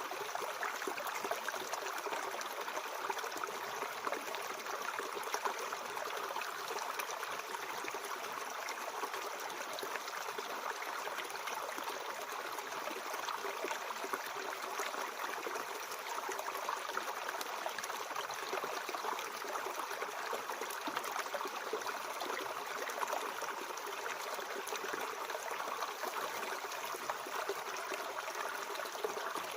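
Mountain stream flowing over rocks: a steady rush and trickle of water with no breaks.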